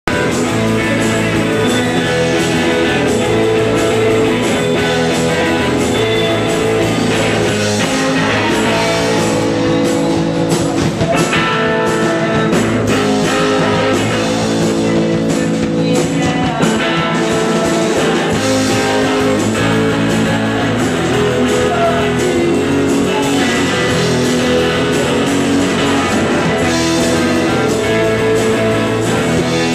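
Live indie rock band playing a song on electric guitar, bass guitar and drum kit, with the lead vocal low and buried under the instruments.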